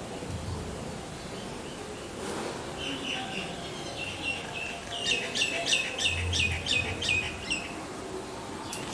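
Rose-ringed parakeet calling: a few softer chirps, then a rapid run of about ten shrill calls, each sweeping down in pitch, over two and a half seconds.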